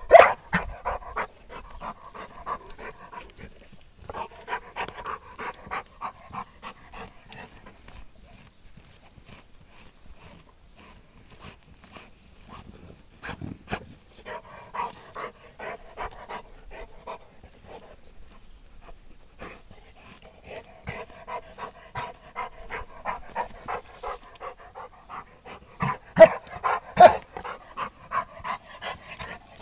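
Rottweiler digging in loose soil: its front paws scrape the dirt in rapid bursts of strokes, with the dog panting. There are two louder thumps near the end.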